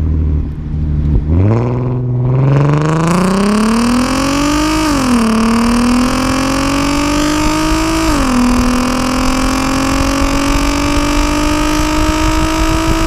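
VW/Audi car with a DSG dual-clutch gearbox accelerating hard from low revs: the engine pitch climbs from about a second in and drops sharply at the upshifts about five seconds in, about eight seconds in, and again at the end, each shift giving the short exhaust 'fart' that DSG cars are known for.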